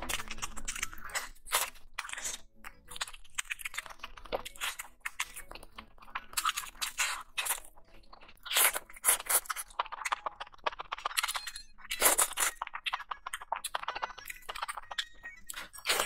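Close-miked eating: biting and chewing mouthfuls of sauced grilled skewered meat and vegetables, a run of irregular sharp bites and wet chewing sounds with brief pauses, loudest about nine and twelve seconds in.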